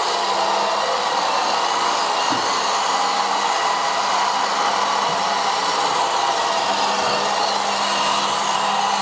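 Vileda robotic vacuum cleaner running: a steady motor-and-fan whir with a constant low hum under it.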